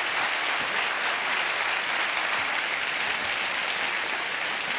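Studio audience applauding, a steady clapping that holds at one level.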